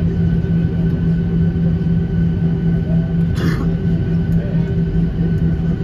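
Airliner cabin noise while taxiing after landing: the jet engines' steady low drone, with a deeper rumble beneath it. A short burst of hiss about three and a half seconds in.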